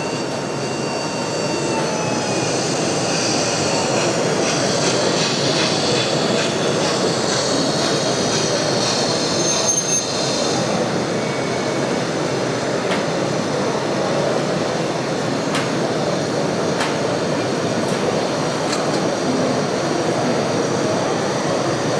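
Running-train sound: a steady rumble with thin high tones that come and go over the first half, then a few sharp clicks later on.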